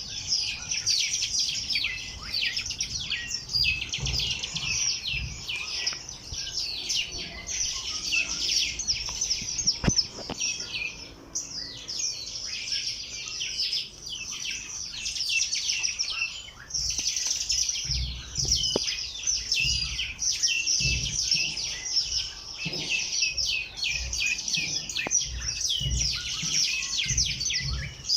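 A flock of small birds chirping continuously, many rapid short chirps overlapping into a dense chorus, with occasional low rumbles underneath.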